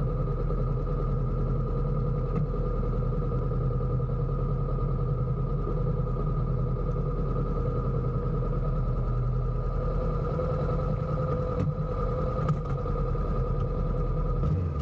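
An engine running steadily at constant speed: a low, unchanging drone with a steady hum.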